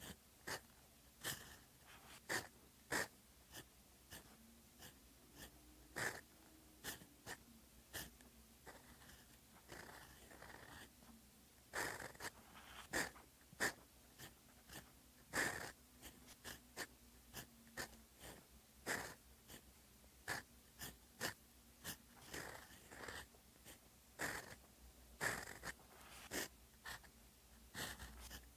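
Fountain pen nib scratching on paper in short, separate strokes as Korean letters are handwritten, about one or two strokes a second with brief pauses between them.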